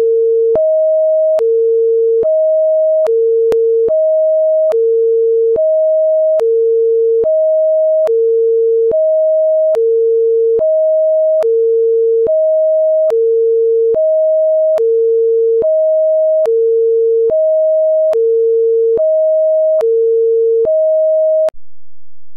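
Whelen electronic siren sounding its Hi-Lo signal: a low tone of about 435 Hz and a higher tone alternate steadily, each held just under a second. It cuts off abruptly near the end.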